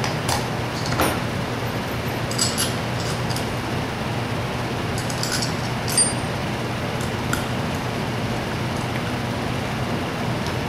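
Small metal parts of a Zenoah G270 engine clicking and clinking now and then as they are handled and fitted by hand, over a steady background hum. The sharpest clink comes about six seconds in.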